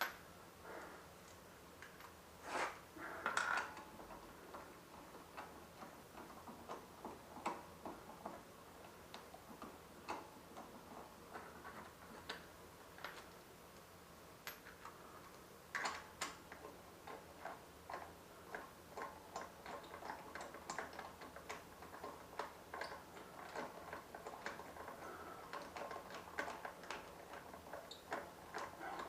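Faint, irregular metallic clicking and clinking as lug bolts are threaded and run into the hub of a Mini Cooper's front wheel. The clicks come thicker in the second half.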